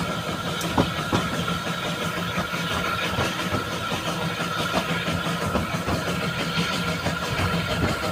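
Narrow-gauge steam train under way, heard from an open carriage window: the steady running noise of the carriage and its wheels on the track, with scattered knocks.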